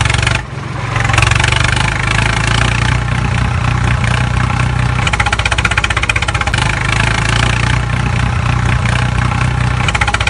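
Tractor engine running steadily with a fast, even chugging beat and a brief dip in level about half a second in. It is an engine sound laid over the footage, not the toy's own motor.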